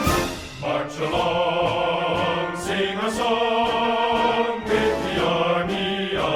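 Background music with a choir singing sustained, chant-like lines over orchestral accompaniment.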